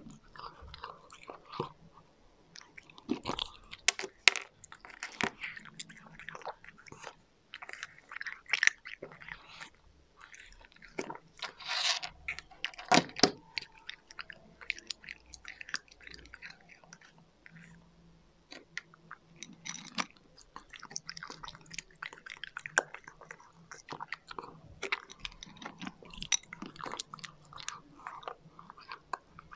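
Cat crunching dry kibble, recorded close up: irregular clusters of sharp crackly bites and chewing with short pauses between mouthfuls.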